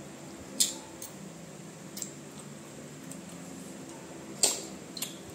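Wet mouth sounds of a child eating ripe mango flesh off the skin, with sharp lip-smacking clicks about half a second in, at two seconds, and twice near the end, the loudest just before the end. A low steady hum runs underneath.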